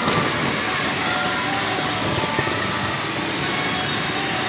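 Steady din of an indoor inflatable play park: a constant rushing noise with faint, distant children's voices in it.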